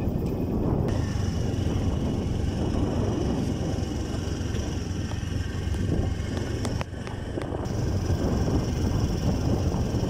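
Motorcycle riding along a hill road, its engine running steadily under a low rumble of wind and road noise. The sound dips briefly about seven seconds in.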